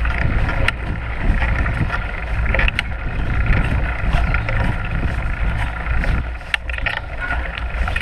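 Mountain bike with a wide knobby tyre rolling fast along a dirt forest trail: wind buffets the microphone with a steady low rumble over tyre noise, and a few sharp clicks and rattles come as the bike jolts over the ground.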